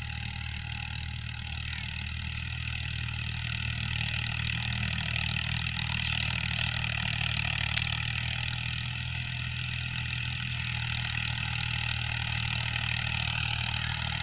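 Al Ghazi 65 hp tractor's diesel engine running steadily under load while pulling a disc harrow through stubble, heard from some distance and growing a little louder partway through. A single sharp click about eight seconds in.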